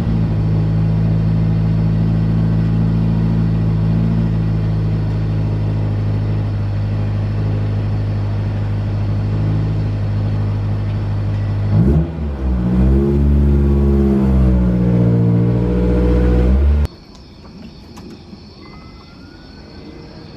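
Honda S2000's four-cylinder engine idling steadily, then revving up and down for a few seconds before the sound cuts off abruptly near the end.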